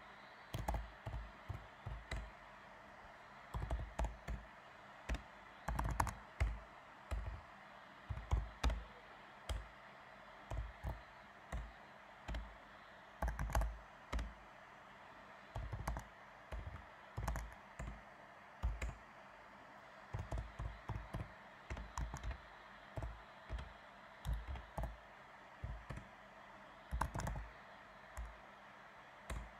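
Typing on a computer keyboard: irregular runs of key clicks with short pauses between words and lines.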